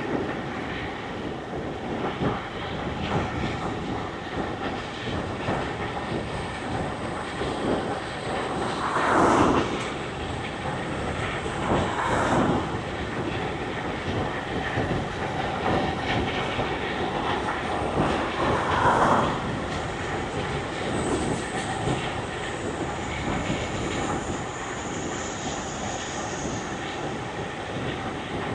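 Steady rushing wind and road noise of a road bike ride among traffic, with three louder swells about nine, twelve and nineteen seconds in.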